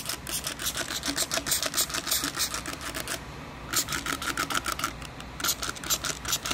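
A cloth scrubbed hard and fast back and forth over a glossy fiberglass boat surface, about six scratchy strokes a second, with a short pause a little after three seconds in.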